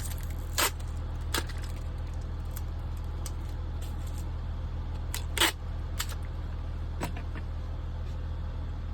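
Several short, sharp clicks and knocks from handling a picture frame and packing tape, the loudest about five and a half seconds in, over a steady low hum.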